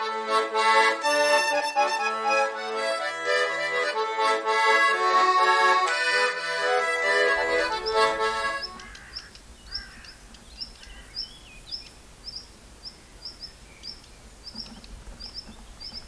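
Accordion music for the first eight seconds or so. Then a female redstart's alarm call takes over: short high-pitched notes repeated at an even pace, just under two a second. The calls signal a predator near the nest, here a cat.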